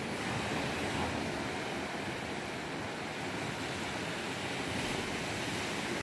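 Caribbean Sea surf breaking on the shore: a steady wash of waves that swells a little now and then.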